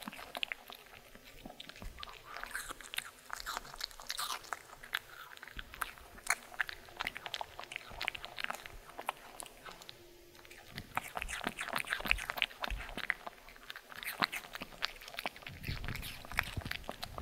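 A Maltese dog biting and chewing pieces of raw apple in a rapid run of crisp, wet crunches, with a short lull about ten seconds in.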